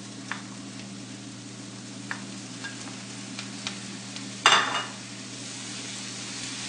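Chopped onions frying in oil in a pan: a steady sizzle with a few light taps of the stirring spoon. About four and a half seconds in comes a loud, short metallic clatter with a brief ring, and the sizzle grows a little stronger after it.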